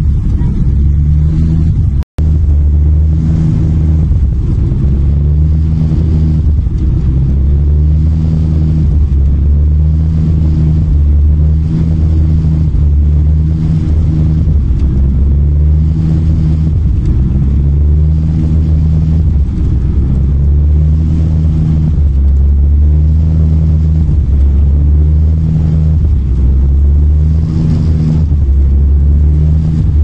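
Loud, steady low rumble inside an Airbus A321 airliner cabin in flight: engine and airflow noise picked up by a phone at the window, swelling and easing every second or two. The sound cuts out for an instant about two seconds in.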